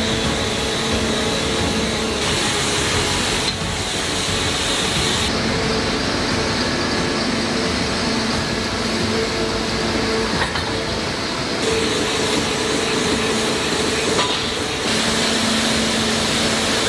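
Heavy industrial machinery in a forging plant, running with a steady hum and a droning tone. The noise changes abruptly several times, and there is a faint clink about ten seconds in.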